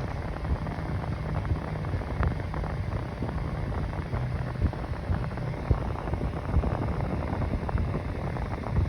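Mainstays 9-inch box fan running on its high speed: a steady rush of air with a low, even motor hum underneath.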